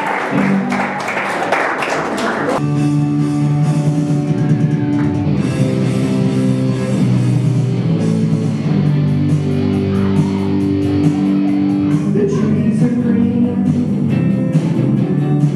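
Music with guitar and singing. The first two and a half seconds are dense and noisy, then held notes change every second or so.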